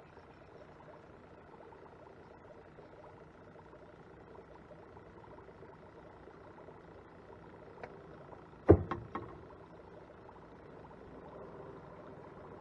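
A single sharp knock on the kayak about two-thirds of the way through, followed quickly by two lighter clicks, over a faint steady low hum.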